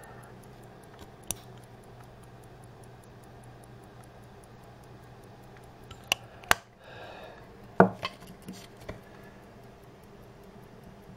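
Molnija mechanical pocket watch ticking fast and evenly. Midway the hinged steel cover snaps shut with two sharp clicks. Soon after comes a louder knock, then a few lighter knocks, as the watch is handled and set down.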